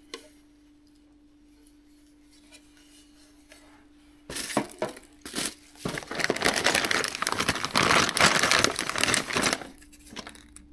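Plastic packaging crinkling and rustling as a plastic-wrapped bundle of adapter boards is lifted from a cardboard box and handled, starting about four seconds in and easing off near the end. Before it, only a faint steady hum.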